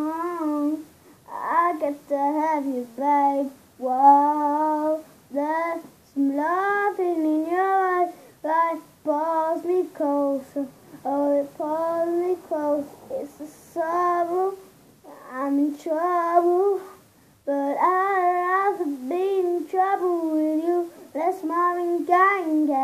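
A young boy singing alone, unaccompanied, in short phrases with brief pauses for breath.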